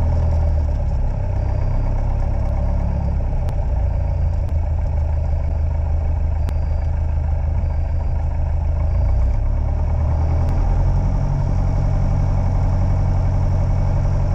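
Light aircraft's piston engine running at low ground power, heard inside the cockpit as a steady low drone with small shifts in pitch. A few faint sharp clicks come from the recorder's audio track.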